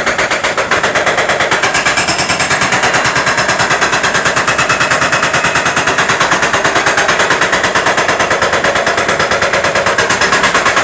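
Jackhammer breaking concrete: rapid, even hammering blows that run on without a break.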